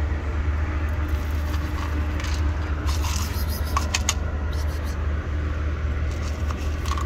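Steady low rumble of motor traffic, with a few short clicks and rattles in the middle.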